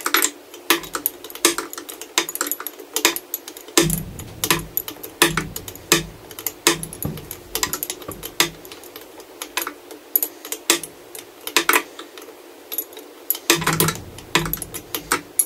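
Irregular metallic clicks and clinks of a hand tool working the carburetor bolts and linkage on a Mercury Thunderbolt 500 50 hp outboard powerhead. Heavier knocks come from about four to eight seconds in and again near the end.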